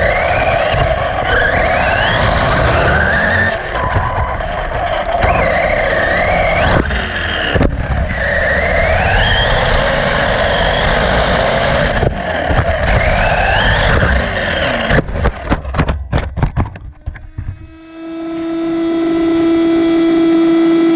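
RC buggy on the track: its motor whine climbs over and over with each burst of throttle, over a steady rush of tyre noise. About fifteen seconds in comes a quick run of sharp knocks as the car crashes and tumbles, then a steady whining hum that swells while the car lies still on its back.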